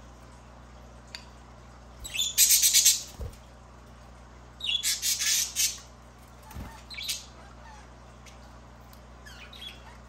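Pet budgerigars calling in two loud, rapidly pulsing bouts, about two seconds in and again about five seconds in, followed by a few shorter, softer calls.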